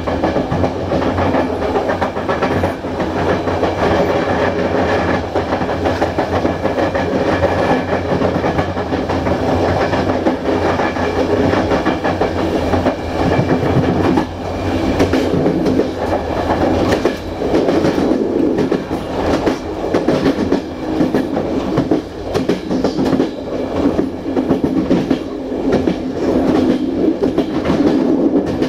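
Passenger coach running on jointed track, heard from inside the train: a continuous rumble of wheels on rail with the repeated clickety-clack of the rail joints.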